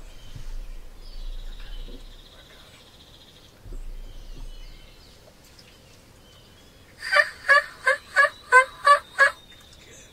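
A mature wild turkey tom gobbling: one loud rattling gobble of about seven quick notes, starting about seven seconds in and lasting a little over two seconds.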